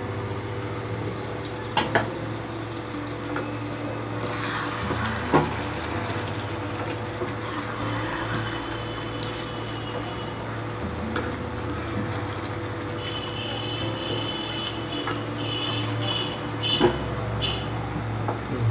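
Chicken and potato curry simmering and bubbling in a kadai as a wooden spatula stirs it, knocking sharply against the pan about two seconds in, at about five seconds and near the end. A steady low hum runs underneath.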